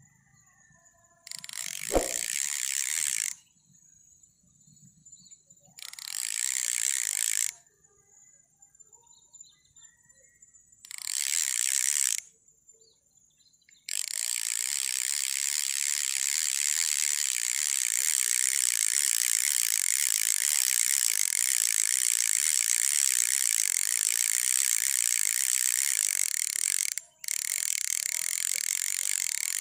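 Cicadas buzzing, a high rasping drone: three short bursts of about two seconds each, then one long continuous song from about halfway through, broken once briefly near the end.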